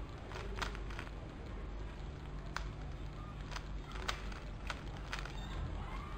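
A 3x3x3 Rubik's cube being turned by hand: irregular sharp plastic clicks and clacks as the layers snap round, over a steady low hum.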